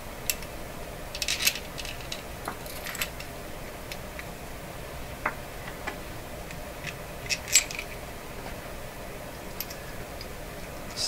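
Scattered light clicks and small metallic clinks as a bolt is handled and fitted through a small antenna coil form by hand, with a couple of sharper clicks, over a steady faint hiss.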